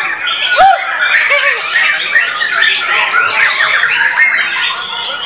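White-rumped shama singing: a dense, fast stream of overlapping whistles and trills, with people's voices mixed in.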